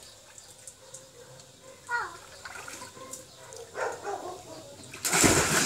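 Light water sloshing in a plastic water tank, then about five seconds in a sudden loud splash as a child jumps into the water-filled tank.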